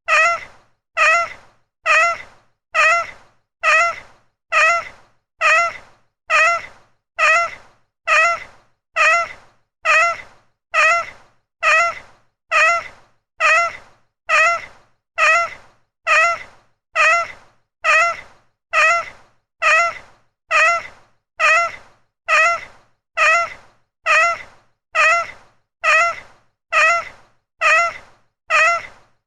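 A single short house-cat meow, repeated identically in a rapid loop of about three calls every two seconds. Each meow bends up slightly in pitch and then falls away.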